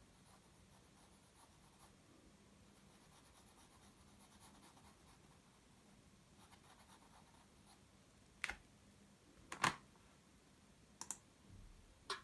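Pencil scratching faintly on sketchbook paper as short strokes are drawn, with three sharp clicks in the second half, the loudest about two-thirds through.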